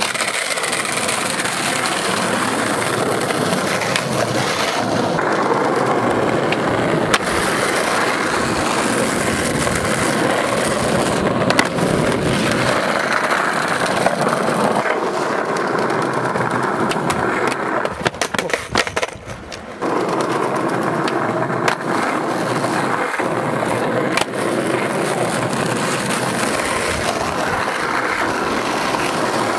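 Skateboard wheels rolling steadily over rough tarmac, with a few sharp clacks of a board and a brief drop in the noise a little past the middle.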